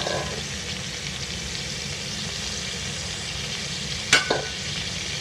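Raw mango slices sizzling in hot ghee in a kadhai, a steady hiss, with two sharp knocks against the pan about four seconds in.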